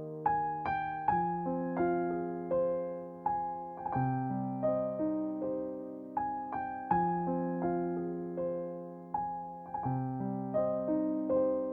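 Background music: a slow, gentle piano melody, notes struck a few times a second and left to ring and fade.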